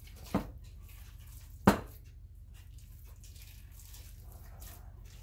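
Hands kneading raw ground beef meatloaf mixture in a glass mixing bowl: faint squishing, with two sharp knocks, the second much louder, about a second and a half in.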